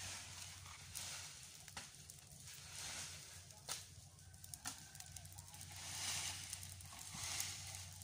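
Dry leaf litter crackling as a small fire burns in a leaf pile, with a few sharp pops and swelling rustling crunches of dry leaves underfoot, over a steady low hum.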